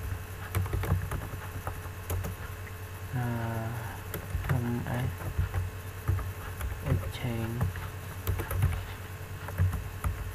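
Typing on a computer keyboard: irregular key clicks throughout, with a man's voice sounding briefly a few times in between.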